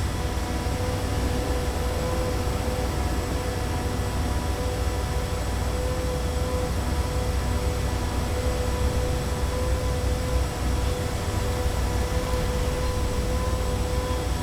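Continuous city street ambience: a steady low rumble of traffic under a constant, even machine hum, with no distinct events.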